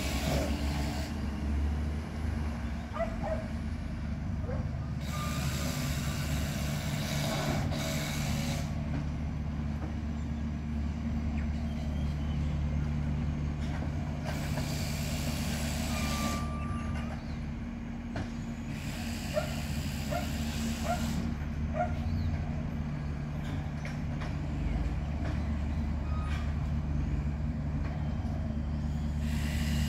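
Diesel garbage truck running steadily, with several two-to-three-second hisses of air, typical of air brakes, spaced several seconds apart as it stops and moves along.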